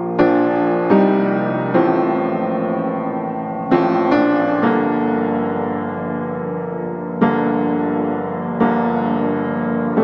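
Background piano music: slow chords struck every second or two, each left to ring and fade.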